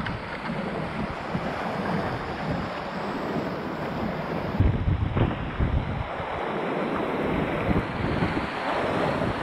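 Whitewater rapids rushing steadily around a kayak, with gusts of wind buffeting the helmet-mounted microphone in heavier low rumbles, the strongest about halfway through.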